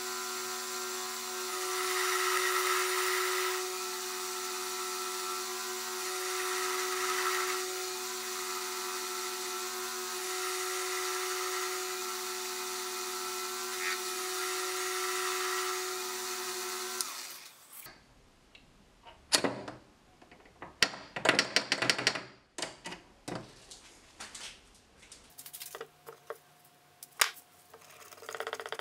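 Mini metal lathe turning an aluminium bar: a steady motor hum under the hiss of the cutting tool, which swells and fades every few seconds. About two-thirds of the way through it stops abruptly, giving way to scattered clicks and clinks of small metal parts being handled on a workbench.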